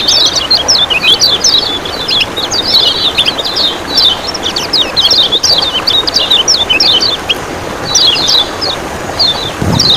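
Kecial kuning (a Lombok white-eye) calling in quick, high 'ciak ciak' chirps, nearly continuous with a couple of brief pauses, over a steady rush of running water.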